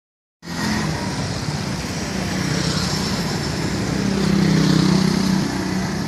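Street traffic of small motorcycle engines, including a motorbike-drawn tuk-tuk, running over a steady road hum. The engine sound swells to its loudest about four to five seconds in as the nearest vehicles come close, then eases off.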